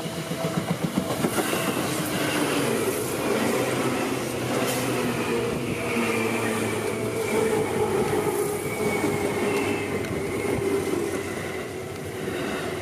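Yellow Seibu Railway electric commuter train passing close by: wheels rumbling over the rails with a few sharp clacks at rail joints, and a high squeal and a lower whine that slowly drift down in pitch.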